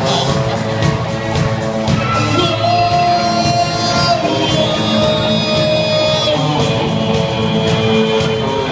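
Live amateur rock band playing: electric guitars, drum kit and keyboard, with a singer, through the stage speakers and echoing in a large hall.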